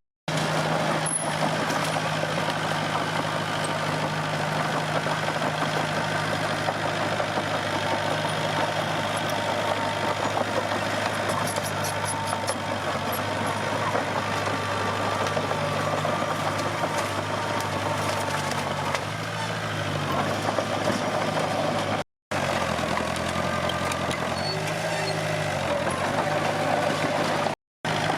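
Komatsu D21P bulldozer's diesel engine running steadily under work, its pitch dipping and recovering a couple of times in the second half as the load changes, with a few light metallic clinks about twelve seconds in. The sound cuts out abruptly for an instant twice in the later part.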